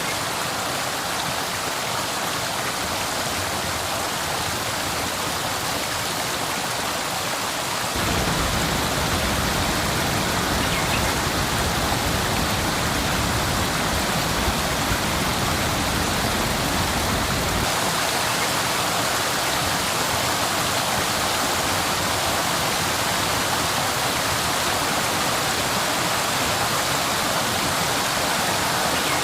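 Waterfall: a steady rush of falling water. It changes suddenly about 8 seconds in, becoming deeper and louder, and again near 18 seconds, when the deep part drops away.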